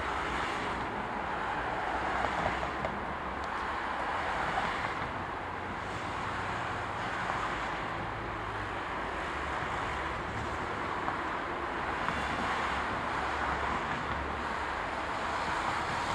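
Diesel locomotive hauling a freight train of tank wagons, running steadily with a continuous rumble.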